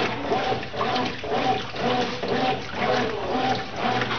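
Brastemp Ative 11 kg washing machine agitating its wash load: the motor hums and the water sloshes in a regular back-and-forth rhythm of about two strokes a second.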